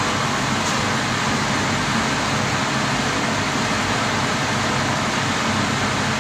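Gas water boiler running: a steady, even rushing noise with no change in level or pitch.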